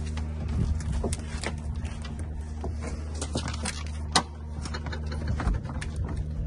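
Small dinghy being tipped over on a boat's deck: scattered knocks and scrapes of its hull against the deck, with one sharp knock about four seconds in. A steady low hum runs underneath.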